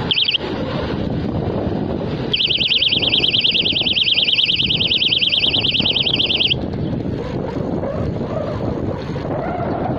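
Electronic bicycle horn sounding a fast warbling siren-like tone: a brief blip at the start, then one steady warble about four seconds long from a little over two seconds in. Wind noise on the microphone runs underneath.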